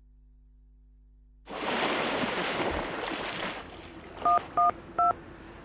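Three short keypad beeps from a GSM mobile phone, dialling 1-1-2, the emergency number, the third beep a little higher than the first two. Before them comes a loud rush of noise lasting about two seconds.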